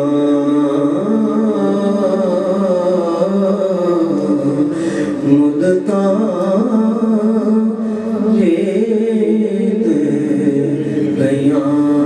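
Male voice singing a naat (Urdu/Punjabi devotional song) into a microphone, with long, bending, ornamented held notes over a steady low drone.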